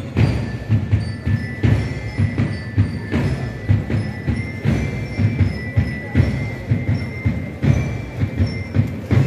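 Procession band music: a high held melody moving in steps over regular drum beats.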